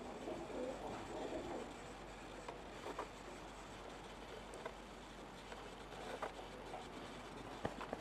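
Pigeons cooing, mostly in the first second and a half, followed by a few faint scattered clicks.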